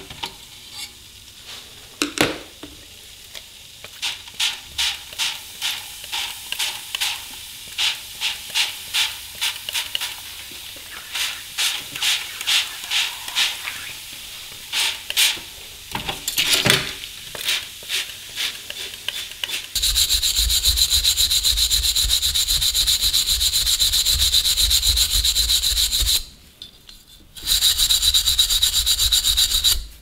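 Short hissing strokes, one or two a second, as the stripped tin hopper is worked by hand. Then a steady loud rotary wire brush runs against the bare metal, burnishing it, with a brief stop near the end.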